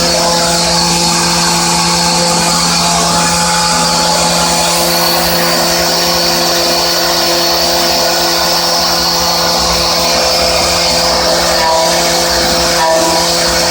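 Hermle C20U machining centre trochoidal milling with a 16 mm end mill at 4800 rpm, cutting 30 mm deep with a 1 mm stepover: a steady whine of several held tones over a hiss. Near the end, short extra tones cut in and out.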